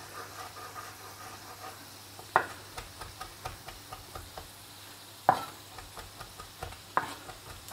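Kitchen knife chopping parsley on a wooden cutting board: a quick run of light taps, with three louder knocks about two and a half, five and seven seconds in. A faint sizzle of potatoes and bacon frying in pans goes on underneath.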